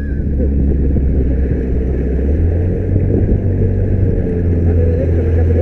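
Car engine and road noise while driving: a steady low drone that steps up slightly in pitch a little over two seconds in.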